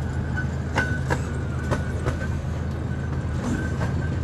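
Miniature park train running, a steady low drone from the train with sharp clicks as the wheels pass over rail joints, irregularly spaced.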